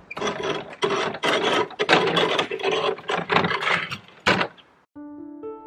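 Branches and brush scraping and rustling over the ground as downed yard debris is hauled, in a string of rough bursts, with a sharp knock just after four seconds in. Piano music starts near the end.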